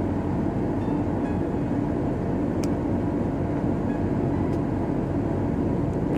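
Steady low rumble of a car cruising on a highway, heard from inside the cabin: engine and tyre-on-road noise with a constant low hum.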